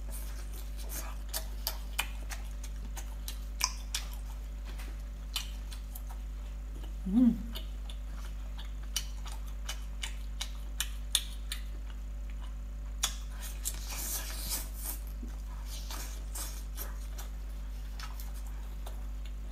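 Close-up wet chewing and mouth clicks of someone eating spicy braised baby octopus, with scattered sharp clicks over a steady low hum. A brief hum of the voice comes about seven seconds in, and a longer patch of louder wet noise comes around the middle.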